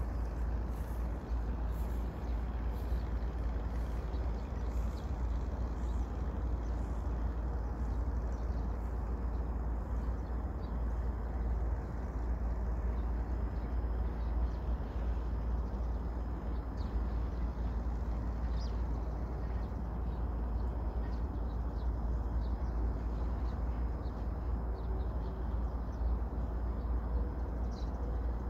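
Steady low wind rumble buffeting the microphone outdoors, with a few faint, short high chirps now and then.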